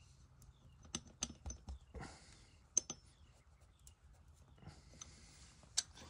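Faint, scattered clicks and soft rustling from hands working a rubber tire plug strip through the eye of a plug insertion tool.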